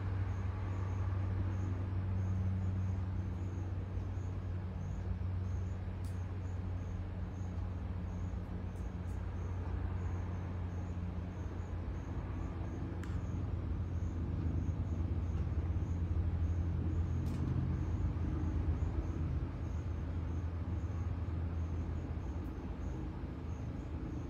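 Steady low mechanical hum, with faint high chirps repeating evenly over it.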